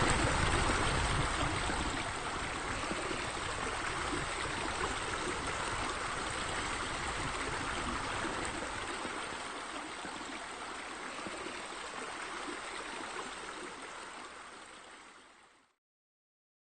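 Steady sound of running water, like a flowing stream, that gradually fades and dies away near the end.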